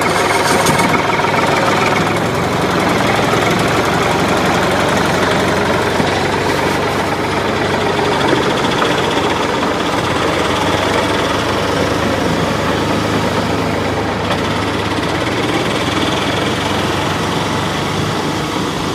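Tractor engine sound effect running steadily throughout, with no change in speed.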